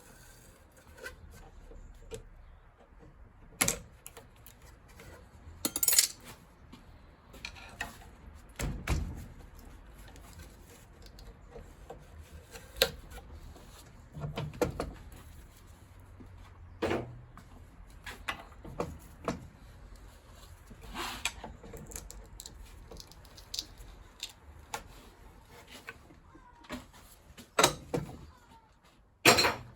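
Irregular metallic clinks and knocks of hand tools working on the brass and copper fittings of a gas combi boiler being taken apart, with a few louder knocks among quieter handling clatter.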